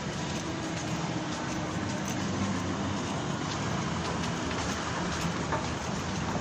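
Steady low rumble and hiss of indoor background noise, even and unbroken, with no distinct events.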